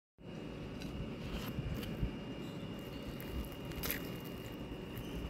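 Crisp deep-fried samosa pastry crackling a few times under the fingers as it is picked up and pressed, over a steady low handling rumble.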